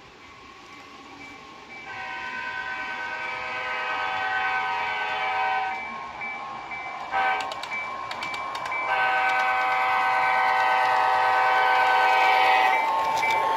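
Horn of an HO-scale model EMD SD45-2 diesel locomotive, sounded in the grade-crossing pattern: long, long, short, long. It grows louder as the train approaches, with light clicking of the wheels on the track.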